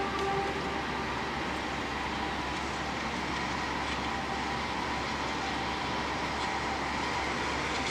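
Steady hiss of rain over a continuous background of city and railway noise, with a few faint steady tones near the start.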